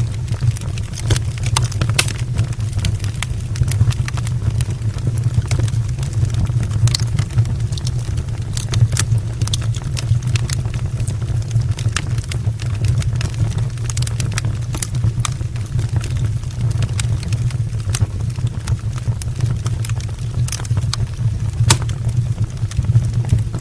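Wood fire burning in an open brick fireplace: a steady low rumble of flames and draught with frequent sharp crackles and pops from the logs, one of the loudest near the end.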